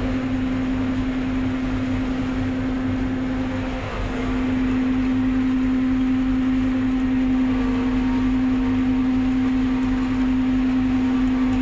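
Forage harvester running steadily while chopping maize for silage: a constant machine drone with one strong steady pitch, dipping briefly about four seconds in.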